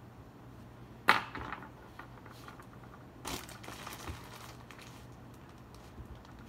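Plastic bag crinkling as it is handled and tucked under a clay piece: a sharp crackle about a second in that quickly fades, then a longer rustle around the middle.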